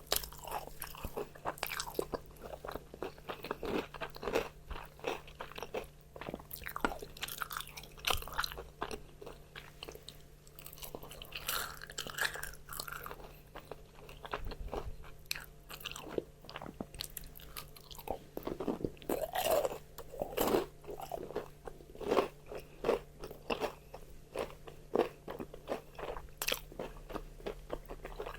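Crispy fried chicken being bitten and chewed close to the microphone: irregular crackling crunches of the fried coating, again and again.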